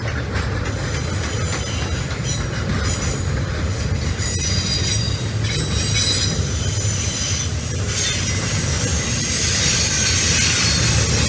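Double-stack intermodal freight train rolling past: a steady rumble of wheels and cars, with high-pitched squealing from the steel wheels that comes and goes, loudest about four and a half and six seconds in and again near the end.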